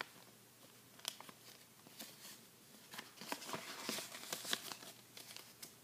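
Faint rustling and crinkling of paper as a folded letter is handled and opened, with scattered small crackles and a denser patch of rustling about three seconds in.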